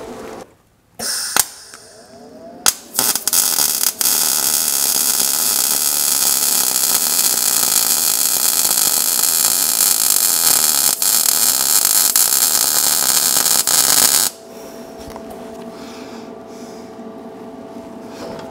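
MIG welder arc running steadily for about eleven seconds as an exhaust flange is welded on, after a few brief strikes in the first few seconds. It cuts off suddenly, leaving a quieter steady hum.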